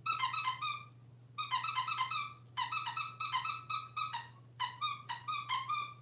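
Squeaker inside a plush squirrel dog toy squeezed rapidly by hand, giving four quick runs of high, pitched squeaks.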